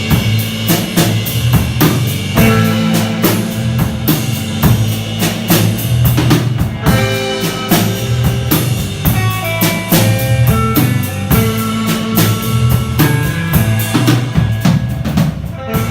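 Surf-rock band playing an instrumental at a slow tempo: a drum kit with bass drum, snare and steady cymbal strokes drives it, under sustained melody notes and a bass line. The drums drop out right at the end.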